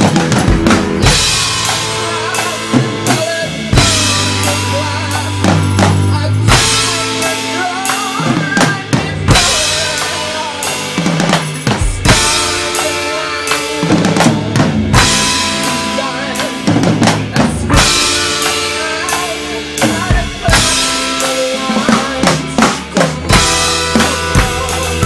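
Drum kit played with sticks in a busy improvised groove, with frequent strikes and fills, over a recorded backing track whose held bass notes and melody lines run underneath.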